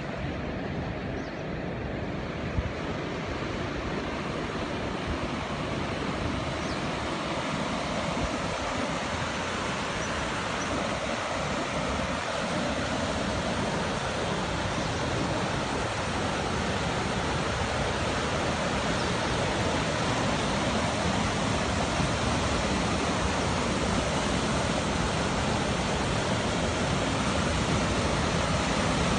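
River water rushing in a steady, even noise that slowly grows a little louder.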